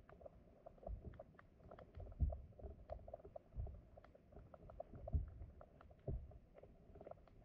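Flowing stream water heard underwater: a faint steady hiss with soft low thuds every second or so and many small, sharp clicks scattered throughout.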